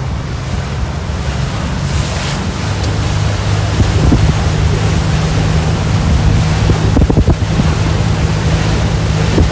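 Speedboat engine running and picking up speed, with water rushing past the hull and wind on the microphone; the sound grows steadily louder. A few thumps come about seven seconds in.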